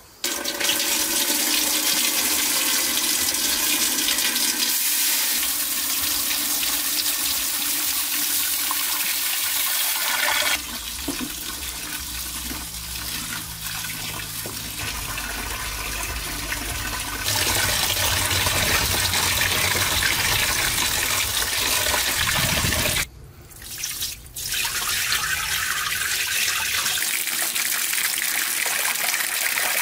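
Water running from a tap and splashing into a metal pot of rice. The flow is steady, changing in tone a couple of times, and drops away briefly about 23 seconds in before resuming.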